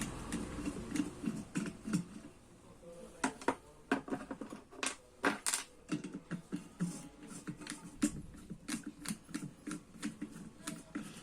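Phillips screwdriver undoing the screws that hold an electric kettle's heating coil: irregular small clicks and metal-on-plastic scraping, with stretches of grinding as the screws turn.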